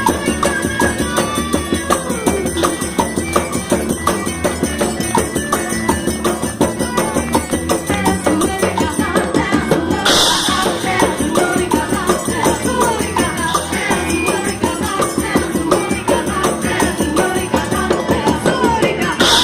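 Loud, upbeat music with a fast, steady jingling percussion beat like a tambourine or shaker, over a melody.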